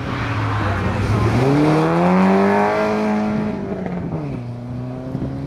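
Volvo 740 rally car accelerating hard out of a junction: its engine note rises and holds, then drops about four seconds in and settles lower as the car pulls away up the road.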